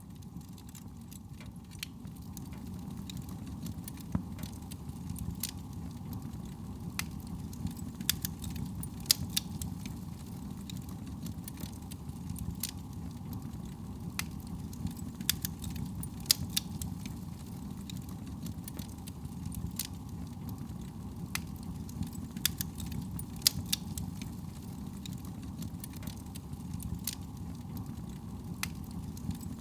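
Wood fire in a fireplace crackling, with sharp irregular snaps and pops over a steady low rumble of soft breeze.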